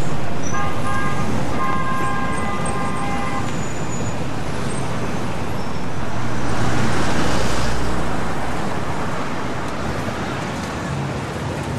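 City street traffic noise, steady throughout. A vehicle horn sounds within the first few seconds, and a vehicle passes close by around the middle.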